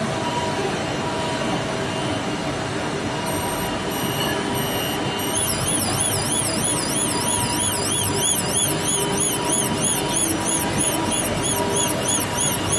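KIGIS iPAS collision-warning alarm: a few short high beeps, then from about five seconds in a fast high-pitched warbling siren, about three sweeps a second, warning that a forklift has come within range. Under it runs a steady hum of forklift and machinery.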